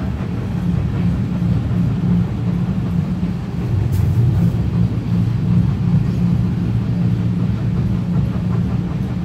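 Steady rumble of a vintage passenger carriage running along the rails behind a steam locomotive, heard from inside the carriage.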